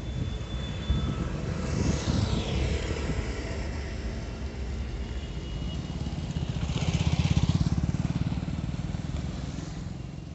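Motor vehicles passing on a road. One goes by with a falling sweep about two seconds in, and a louder engine passes close around seven to eight seconds in, over a steady traffic rumble.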